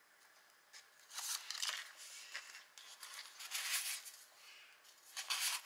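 Paper pages of a handmade junk journal rustling and crinkling as they are handled and turned: several short rustles, the first about a second in.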